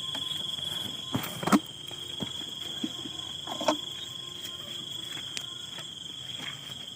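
Insects chirring in one steady, high-pitched, unbroken trill, with a couple of sharp knocks about a second and a half in.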